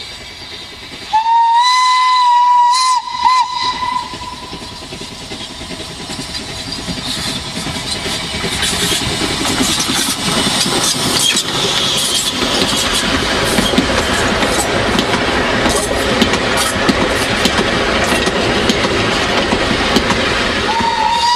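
A 760 mm narrow-gauge steam locomotive, ex-Salzkammergut-Lokalbahn No. 12, sounds its steam whistle about a second in: one steady tone of about two seconds. It then works past close by, getting louder, with the clatter of wheels on the rails as the carriages roll past. A second whistle begins at the very end.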